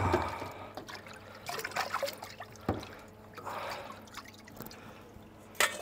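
Water sloshing and trickling as hands stir and rinse broccoli florets in a bowl of water in a stainless steel sink, in soft spells that come and go, with small clicks and a sharp knock near the end.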